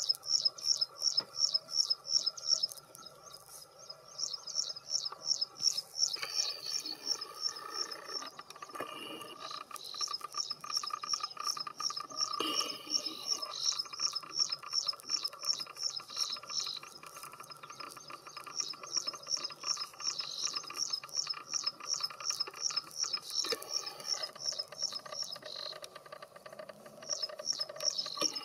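Graceful prinia singing: long runs of the same high note repeated about four times a second, in several bouts broken by short pauses.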